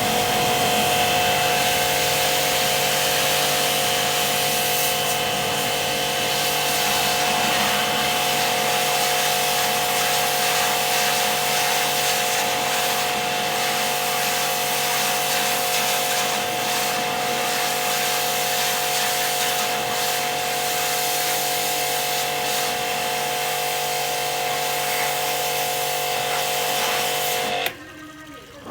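A motor-driven tool running steadily at one constant speed, with a hiss over its hum, then cutting off abruptly near the end.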